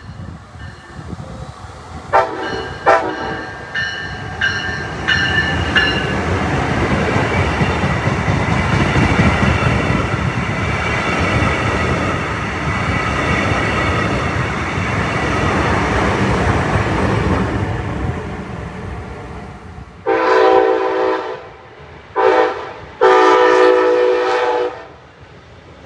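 Brightline passenger train sounding its horn as it approaches, then passing close by with a loud, steady rush of wheels on rail for about ten seconds. Near the end the horn blows again three times: a long blast, a short one and a long one.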